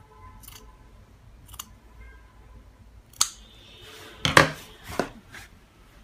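Large scissors cutting through a red cloth scarf: a few soft snips, then louder crisp cuts, the loudest a quick cluster about four seconds in.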